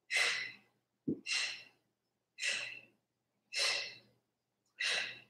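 A woman's sharp forced exhalations through the mouth, five in a row about every 1.2 seconds, one with each oblique crunch. A brief low thump comes just after the first breath.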